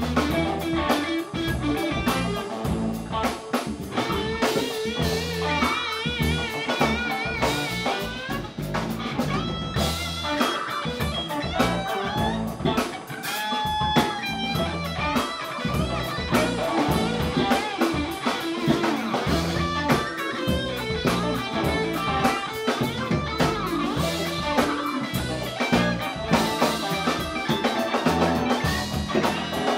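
Live band playing: electric guitars and keyboard over a steady drum-kit beat.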